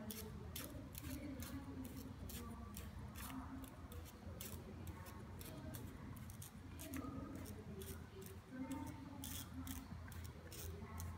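Hand-worked wooden automaton of a man pushing: its wooden gears and linkages clicking and clacking as the mechanism runs, in irregular sharp clicks about three or four a second.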